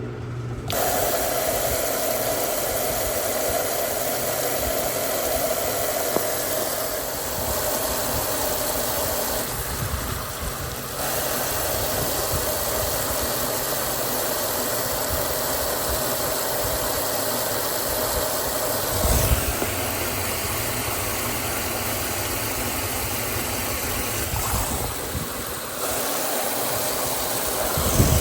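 Mueller Popmatic 8 kg washing machine running, its motor starting up a little under a second in: a steady mechanical whir with a mid-pitched whine, dipping briefly a few times.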